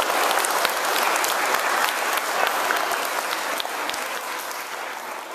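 Audience applauding with dense, continuous clapping that slowly dies down toward the end.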